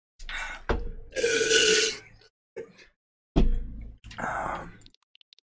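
A person's loud burp, about a second long, followed by a sharp thump and another shorter rough vocal noise.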